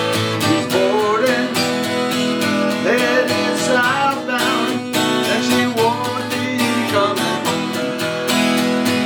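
Acoustic guitar strummed in a steady rhythm, with a lead melody line bending up and down in pitch above it through the middle seconds.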